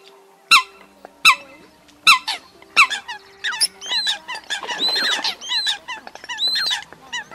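Eurasian coot calls, as used in a trapping lure: short, sharp, piercing calls that fall in pitch and repeat about every three-quarters of a second. About halfway through they become a busier run of overlapping calls, including arched, higher-pitched ones.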